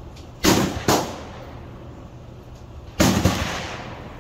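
Gunfire on a shooting range: two shots in quick succession about half a second in, then two more close together about three seconds in, each trailing off in a short echo.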